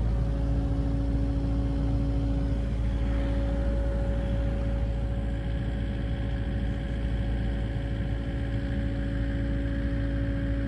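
Kubota KX080-4 excavator's diesel engine running steadily at a constant speed, a low rumble with a steady hum.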